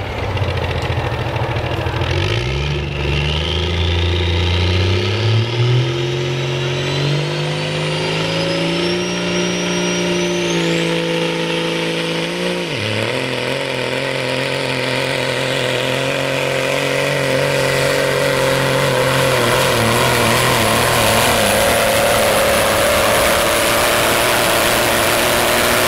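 Limited pro stock semi truck's diesel engine pulling under full load: the revs climb in steps for about ten seconds while a high whistle rises with them, dip sharply about 13 seconds in, then hold high and steady.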